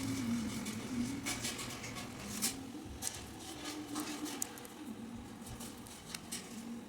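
Scattered light clicks and taps at irregular intervals, the sharpest about two and a half seconds in, over a faint wavering low tone.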